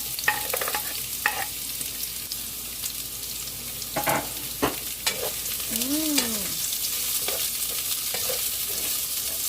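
Garlic, onion and ginger sizzling in hot olive oil in a pan, with a utensil scraping and clicking against the pan as they are stirred. A short rising-and-falling tone sounds about six seconds in.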